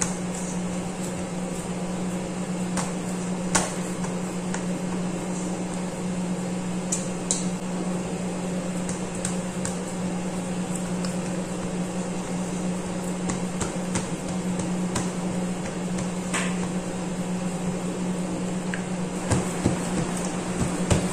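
A steady low hum with hands pressing pastry dough into a round aluminium cake pan, and a few light, sharp knocks against the pan's metal.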